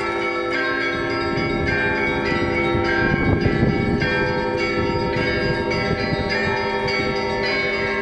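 Church bells ringing: several bells struck in quick succession, about two strikes a second, their tones overlapping and sustained. A short burst of low rumbling noise rises under them about three seconds in.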